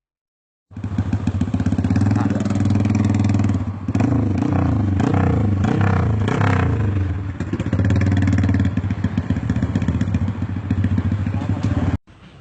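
Motorcycle fitted with a loud aftermarket exhaust pipe, revving. It starts about a second in and holds a steady high rev, is blipped up and down in the middle, then holds steady again until it cuts off abruptly near the end.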